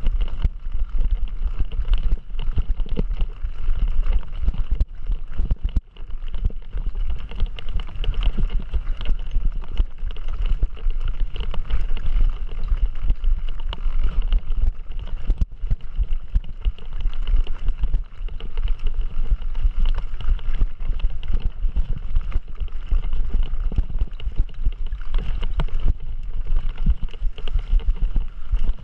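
Mountain bike ridden fast over rough trail during a race, heard from a camera riding with it. Constant low rumble and wind buffeting, with continual small rattles and knocks from the bike and mount over the bumps.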